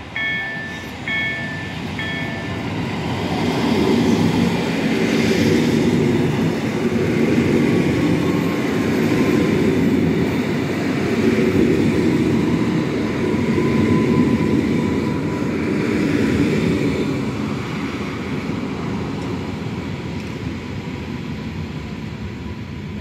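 Level-crossing warning bell sounding in short repeated dings for the first couple of seconds, then an electric multiple unit passing over the crossing: the rumble of wheels on rail builds up, stays loud through the middle and slowly fades, with a faint steady whine in the second half.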